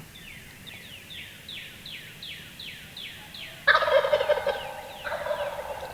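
Wild turkey gobblers gobbling: a loud gobble comes about two-thirds of the way in, followed at once by a second, fainter gobble. Before them, a songbird sings a quick run of falling notes.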